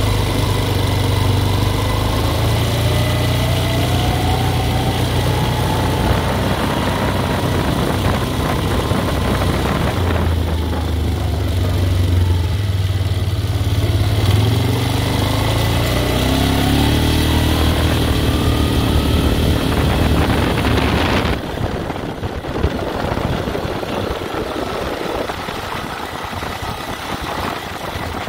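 Four-wheeler (ATV) engine running while it is ridden, rising in pitch twice as it speeds up, then running a little quieter near the end as it eases off.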